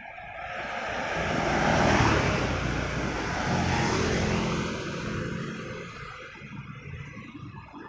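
Two motorcycles passing close by one after the other, their engine noise swelling to a peak about two seconds in and again near four seconds, then fading away.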